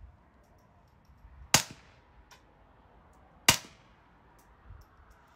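Two shots from a suppressed Browning Buck Mark Micro Bull .22LR pistol wearing a titanium .45-calibre suppressor, each a sharp crack, about two seconds apart. With supersonic .22 ammunition, much of each report is the bullet's supersonic crack, which the suppressor cannot remove.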